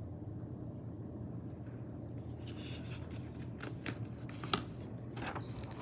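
Picture-book pages being handled and turned: a few soft paper rustles and light clicks from about two seconds in, over a low steady hum.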